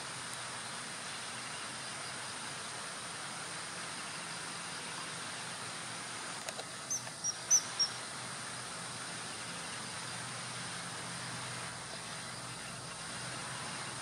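A quick run of about five short, high, piping calls, typical of a common kingfisher, about seven seconds in, over a steady outdoor hiss.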